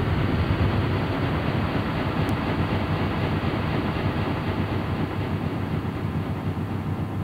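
Dense, steady rumbling noise drone from a lo-fi cassette recording of experimental drone music, easing slightly in level.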